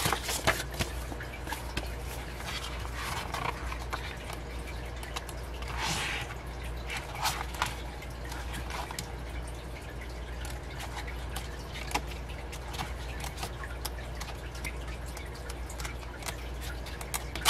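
Pages of a K-pop album photobook being turned by hand: soft paper rustles and light clicks and taps, with one longer rustle about six seconds in, over a faint steady low hum.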